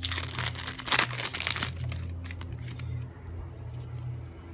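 Wrapper of a Match Attax trading-card booster pack being torn open and crinkled, loud for the first second and a half or so, then dying down to softer rustling.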